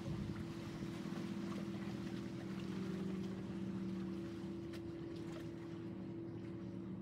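A boat's engine droning steadily across the water, a low, even hum with two held tones, over light wind noise.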